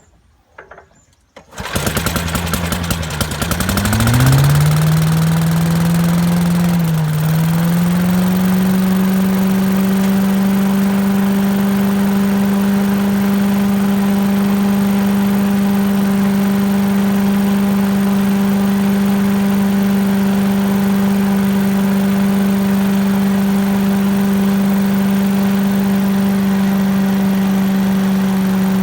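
The small engine of a 1980s Billy Goat lawn vacuum catching about a second and a half in, sputtering and revving up unevenly with a brief dip, then running steadily at speed.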